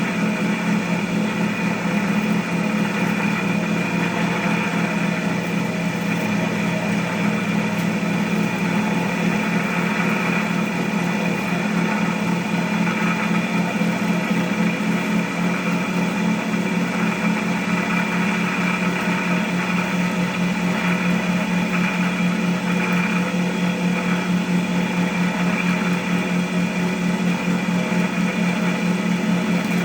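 Cotton candy machine with a cast spinner head running steadily, its motor giving an even, unchanging hum while the head spins sugar into floss.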